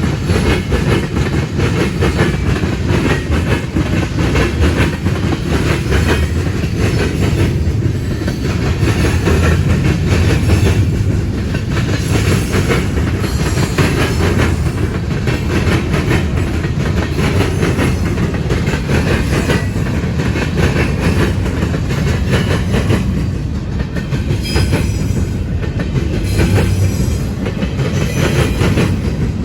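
Cars of a manifest freight train rolling past, their steel wheels clacking steadily over the rail joints.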